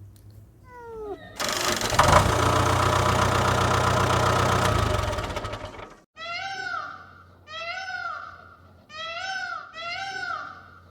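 A few quick falling whistle-like glides, then a loud rushing noise with a low hum for about four and a half seconds that cuts off. After it, a domestic cat meows four times, roughly once a second.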